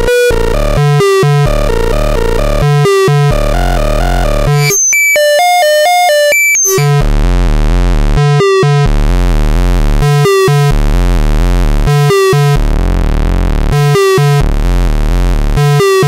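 Circuit-bent noise sequencer playing a looping pattern of harsh, buzzy electronic tones and low drones, with a brief high-pitched beeping passage about five seconds in.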